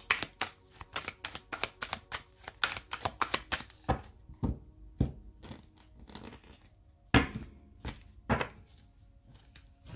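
A tarot deck being shuffled by hand: a quick run of card flicks for about three and a half seconds, then a handful of separate sharp card snaps or taps.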